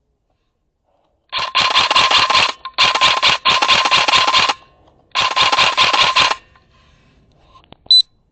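Airsoft electric rifle firing in full-auto: four bursts of rapid shots over the gearbox whine, each about a second long. A single sharp click follows near the end.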